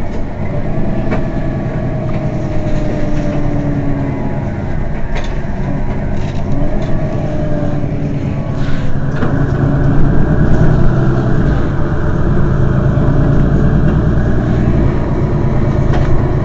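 Mercedes-Benz Citaro city bus standing with its engine idling, a steady low hum with a few faint clicks. About nine seconds in the sound shifts and gets a little louder in the low end.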